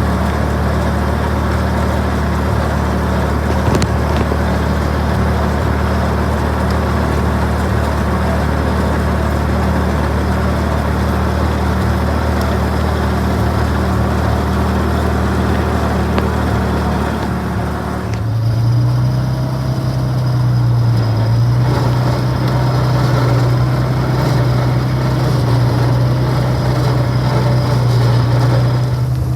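Clarktor tow tractor engine running steadily with a low hum; about two-thirds of the way through, the engine note shifts up to a higher, stronger hum and holds there.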